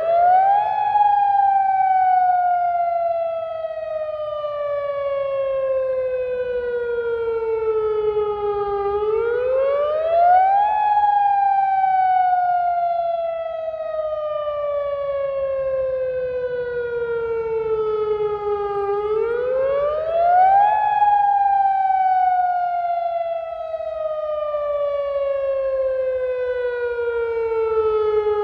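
Electronic AHAB (all hazards alert broadcast) tsunami warning siren sounding a wail during a test: the tone rises quickly for about two seconds, then glides slowly down for about eight, and the cycle repeats three times.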